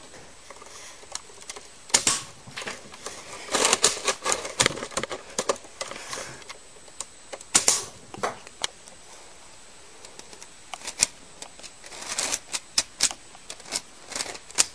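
Sharp plastic clicks and clatter from a working LEGO brick rifle's mechanism as it is fired and cycled, coming irregularly: single clicks and quick runs of several.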